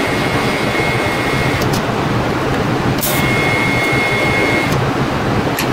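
Electric arc welding on the steel master cylinder mounting bracket: a steady, loud crackling sizzle of the arc, with a few sharp clicks and a thin high whine that comes and goes.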